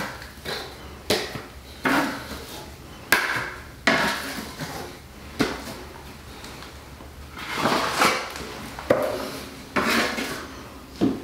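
Small metal taping knife scraping and tapping as it spreads Laticrete Hydro Ban liquid waterproofing membrane along a shower curb: a string of short, irregular scrapes, several starting with a sharp click, roughly one a second.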